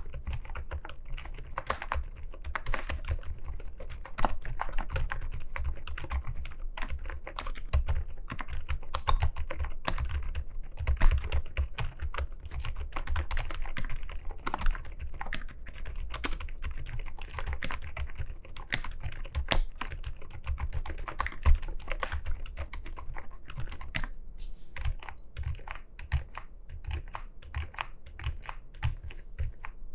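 Rapid, continuous typing on a gasket-mounted CIDOO ABM066 Alice-layout mechanical keyboard fitted with pre-lubricated CIDOO Silent Blue linear switches. The keystrokes are a quiet, smooth-sounding stream of separate clicks.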